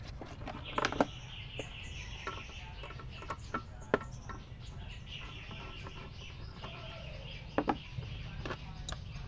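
Chickens clucking in the background, with a steady low hum and a few sharp clicks and knocks of handling the rice cooker, loudest twice about a second in and twice near the end.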